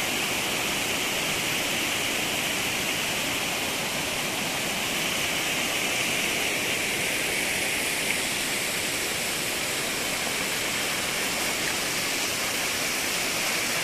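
Water of a shallow stream running and splashing over rocks in small cascades: a steady, unbroken rushing.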